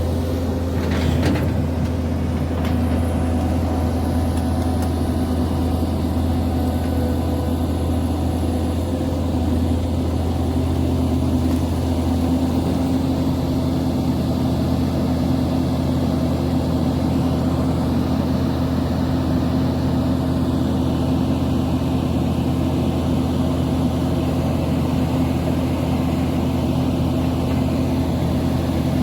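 Diesel engine of a Link-Belt excavator running at a steady speed, with a brief knock about a second in.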